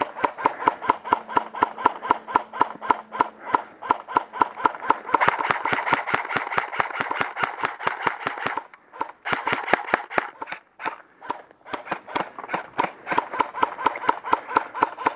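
Airsoft rifle firing a long string of rapid, evenly spaced shots, about five a second, crowding closer together around the middle and pausing briefly about nine seconds in.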